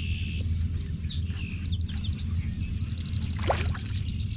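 Small birds chirping and twittering over a steady low rumble, with a brief rushing sound about three and a half seconds in.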